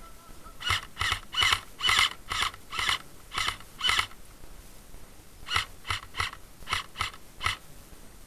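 Airsoft gun firing single shots as sharp cracks, about two a second: eight shots, a pause of about a second and a half, then six more.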